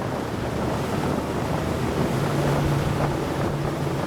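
Grand G650 RIB under way: its engine drones under rushing wind and water noise, with a steady engine note coming through from about two seconds in. Wind buffets the microphone.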